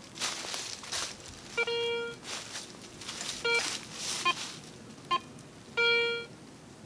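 Handheld metal detector beeping five times as its coil sweeps over buried metal, two of the tones about half a second long and the others short blips, all at the same mid pitch. Dry leaves rustle underfoot between the beeps.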